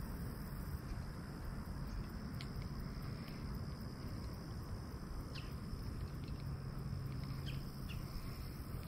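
Faint outdoor ambience: a steady high-pitched insect trill over a low, even rumble, with a few faint ticks.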